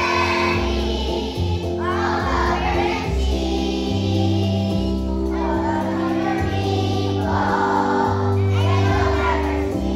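A children's choir singing to an instrumental accompaniment with steady held bass notes and chords underneath.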